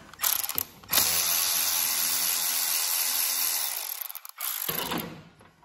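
Milwaukee cordless ratchet running on a battery terminal bolt: a short spin, then a steady run of about three and a half seconds, then another short spin near the end.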